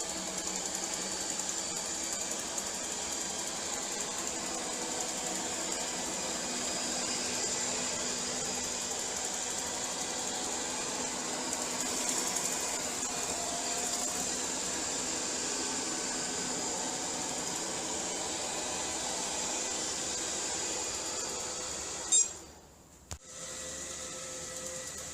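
Robot vacuum cleaner running steadily: an even motor hum with a thin high-pitched whine. Near the end a short loud click, a sudden drop in sound, then a slightly different steady hum.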